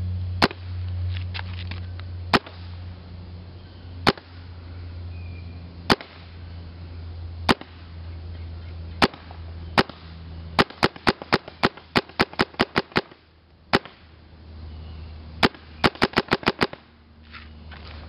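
Vanguard Demon electronic paintball marker firing, each shot a sharp pop: single shots about every one and a half to two seconds at first, then, in the second half, two quick strings of shots at about four a second.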